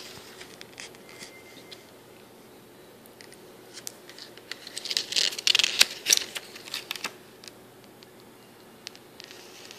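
Paper pages of a spiral-bound booklet being turned: a sharp click at the start, then light handling, and about halfway through a stretch of crinkling paper rustle with quick clicks as a page is flipped over.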